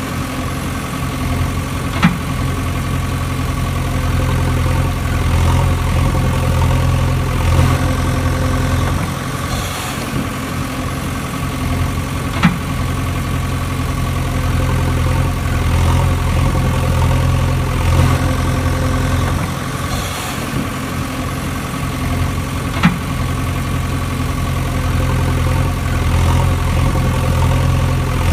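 A recorded heavy engine idling steadily, a sound effect that loops about every ten seconds, with one sharp click in each pass.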